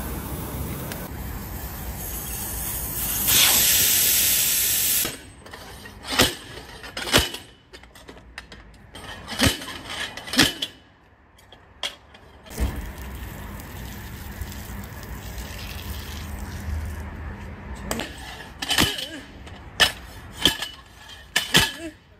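A loud hiss of air for about two seconds that cuts off abruptly, then a series of sharp metal knocks as a steel bar is driven and levered between a car tyre's bead and its steel wheel rim to break the bead.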